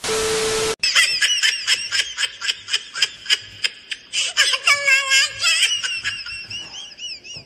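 A short burst of TV-static noise with a steady tone, lasting under a second. Then a person laughs in quick, rhythmic, high-pitched bursts.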